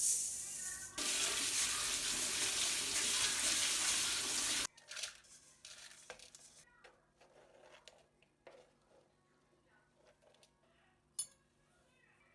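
Kitchen tap running in a steady rush for about five seconds, then shut off abruptly, followed by light clicks and knocks of dishes and utensils, with one sharper tick near the end.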